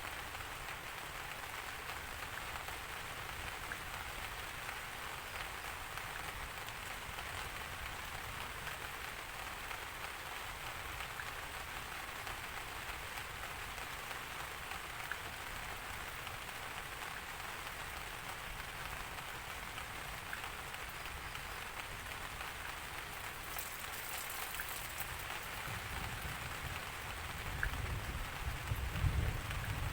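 Steady rain falling and pattering on a surface, with a low rumble of thunder swelling near the end.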